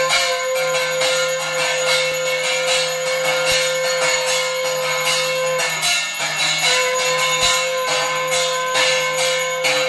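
Puja hand bell rung continuously in quick repeated strokes during an aarti. A steady held tone sounds over it and breaks off for about a second in the middle.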